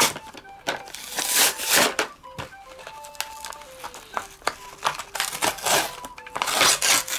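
Toy packaging of plastic and cardboard being crinkled and torn open in a series of noisy bursts, loudest about a second in and again near the end, over light background music with a simple melody.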